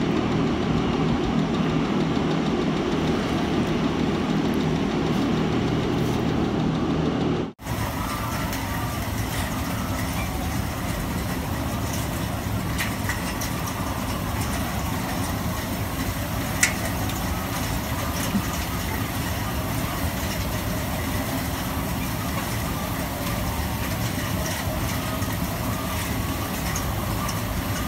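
Steady machinery drone in a poultry house. It breaks off abruptly about seven seconds in and goes on as a slightly quieter steady drone with a few faint clicks.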